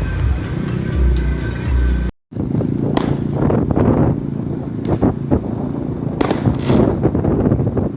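Street noise of motorcycle and car traffic rumbling steadily, with a short break about two seconds in. After the break come several sharp cracks, around three, five and six and a half seconds in.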